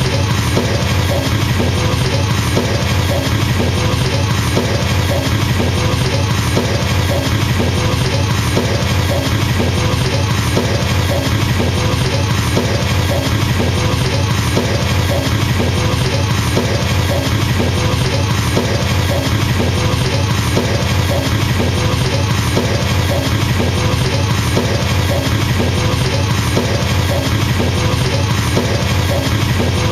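Very fast, unbroken double bass drum playing on a drum kit: the kicks run together into a steady low rumble, the machine-gun or helicopter effect the title names.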